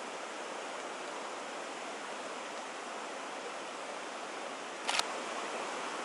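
Steady, even background hiss, with a short plastic rustle about five seconds in as the marshmallow packet is handled.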